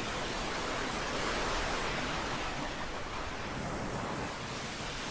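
Steady rush of water flowing and cascading over rocks.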